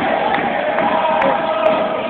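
A basketball arena crowd making a loud, steady din, with many fans chanting together in unison. A few short, sharp ticks sound over it.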